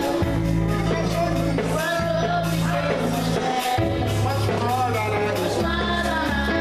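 Music with singing over held bass notes and a steady beat.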